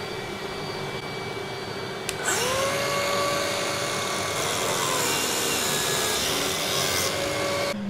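Workshop vacuum running on the hose of a Makita biscuit joiner. About two seconds in, the joiner's motor starts with a rising whine, then holds a steady pitch that sags briefly as the blade plunges into the board to cut a biscuit slot. Both machines stop together near the end.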